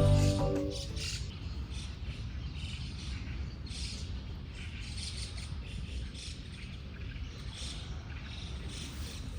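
Small birds chirping in short repeated calls over a steady low rumble. The tail of background music fades out in the first second.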